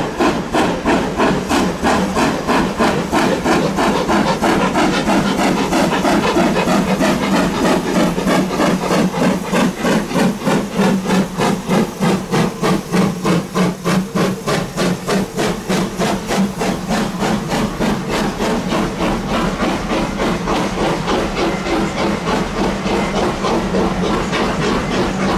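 Steam locomotive working under steam: a steady, even rhythm of exhaust chuffs, about two to three a second, with a hiss of steam underneath.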